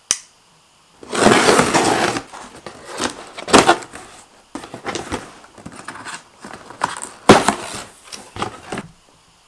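A single sharp click as a folding knife is opened, then repeated loud scraping and tearing of cardboard and packing tape as a box is slit and its flaps are pulled open.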